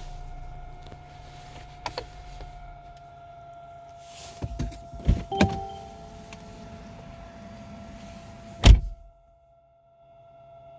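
Steady fan-like whine from behind a Mercedes-Benz's center fascia, heard right after the car has been driven. Several sharp clicks and knocks come around the middle, and a loud knock near the end is followed by a sudden cut-out of about a second.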